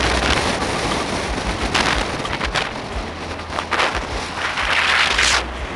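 Wind rushing over the microphone and road noise from a moving car, with a low rumble. It swells in gusts, the longest and loudest near the end, which cuts off abruptly.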